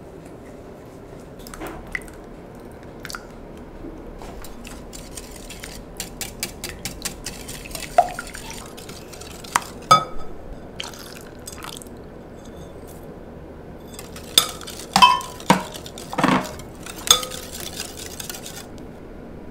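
Metal wire whisk beating a yellow batter mixture in a glass mixing bowl. The wires clink and tick against the glass, sparse at first, then in a quick run, with the loudest knocks in a cluster near the end.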